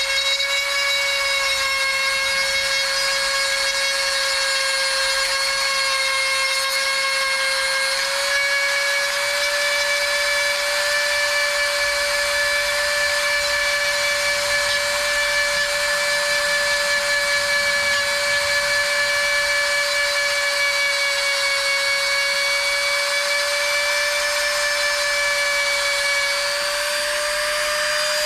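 High-speed rotary tool with a pink grinding stone grinding a moulded bump off a PVC pipe fitting, its motor giving a steady high-pitched whine throughout. The pitch rises slightly near the end.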